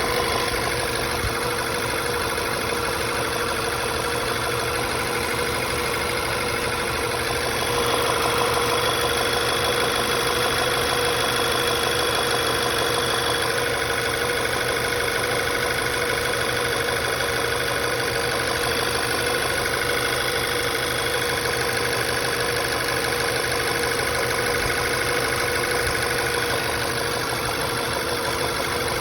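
2012 Volkswagen Tiguan engine idling with a steady knock, the fault the owner is recording. The engine gets slightly louder from about eight seconds in.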